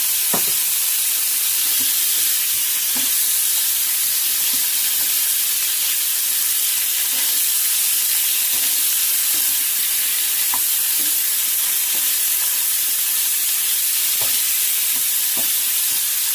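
Chunks of meat frying in a little oil with ginger-garlic paste in a non-stick pan, a steady sizzle, stirred with a spatula that gives a few light ticks against the pan.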